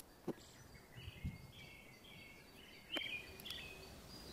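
Faint birdsong: a small bird chirping in short repeated phrases over quiet outdoor ambience, with a few soft taps.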